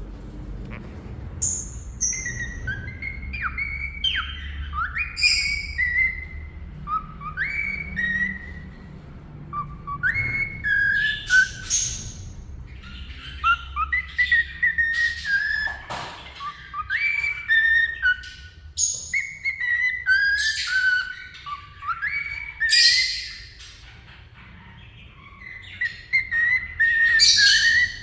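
Cockatiel whistling a tune: a long string of clear whistled notes that glide up and down, broken by short, sharp chirps.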